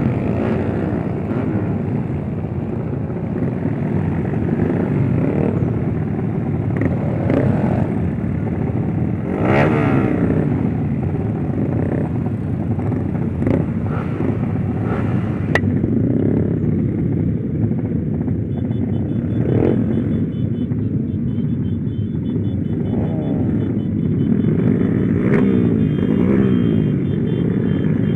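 Freshly rebuilt motorcycle engine running under way, its revs rising and falling again and again as it accelerates and eases off.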